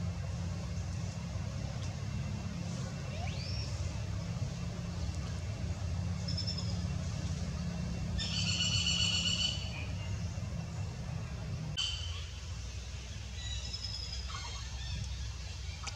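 Short high-pitched animal calls over a steady low rumble, the loudest a wavering cry lasting about a second and a half around the middle, with a sharp click shortly after.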